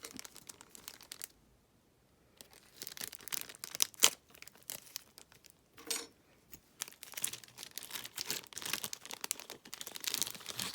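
Packaging crinkling and tearing as a package is unwrapped by hand, in irregular rustling spells after a quiet first two seconds, with one sharp click about four seconds in.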